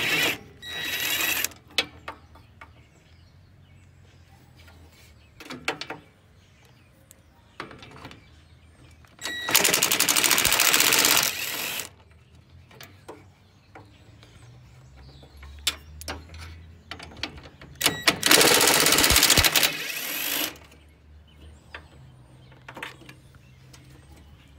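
Cordless impact driver running in a short burst just after the start and two longer bursts of two to three seconds in the middle, backing out bolts on a pickup's radiator core support. Small clinks of tools and metal are heard between the bursts.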